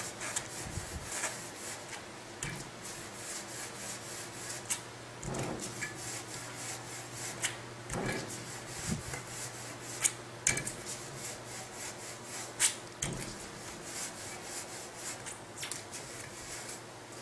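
A clean cloth rubbing against a bicycle's disc brake rotor, wiping its faces to check for leftover oil after cleaning, with scattered light clicks and a few sharper ticks.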